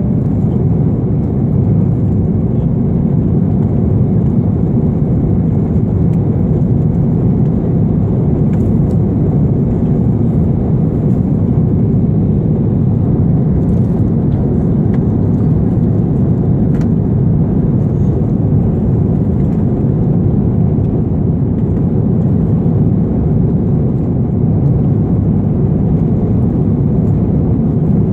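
Steady cabin noise of a jet airliner at cruise altitude, the even rush of airflow and engines heard from inside the cabin.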